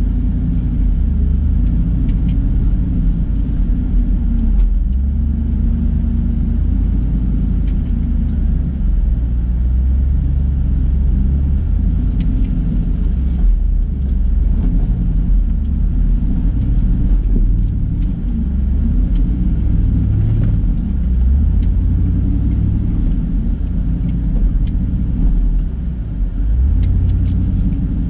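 Off-road vehicle engine running at low revs: a steady low rumble whose pitch wavers slightly, with a few faint clicks.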